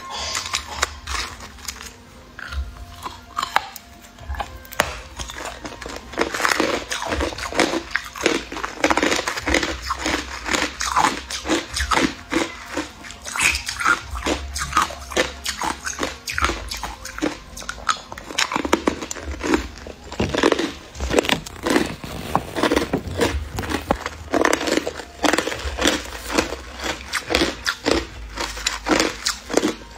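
A person biting and chewing chunks of hard crushed ice: loud, crisp cracks and crunches in quick, irregular succession as the ice breaks between the teeth.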